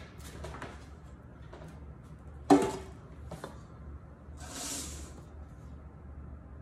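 A metal cake pan set down on a granite countertop with one sharp, briefly ringing clack about two and a half seconds in, followed by a lighter click and a short soft swish.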